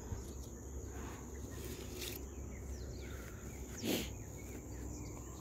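Quiet orchard ambience: a steady high-pitched insect drone with a few faint bird chirps, and one brief louder sound about four seconds in.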